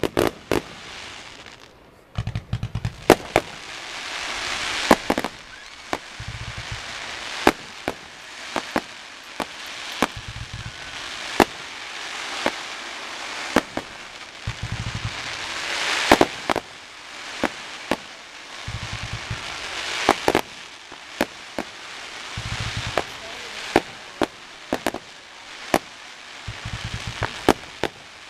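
Fireworks display: shells going off with many sharp bangs at irregular intervals, several close together in places, over a steady crackle of burning stars.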